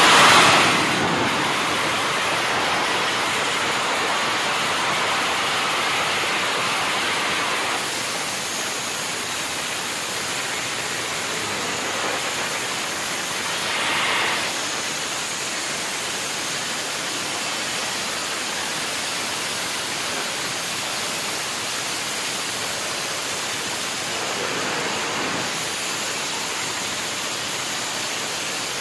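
Tuned underbone motorcycle with an open racing exhaust held at high revs, a loud, steady, hissing blare. It is a little louder for the first several seconds and swells briefly about halfway through.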